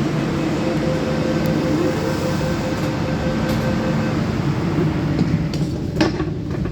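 Steady rumble and hum inside an MTR Rotem EMU train's passenger car, with a steady tone held for about three and a half seconds. A single sharp knock comes near the end.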